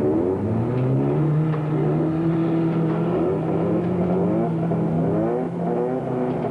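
Several off-road race car engines running at once, their pitches rising and falling as they rev and accelerate over one steady engine drone.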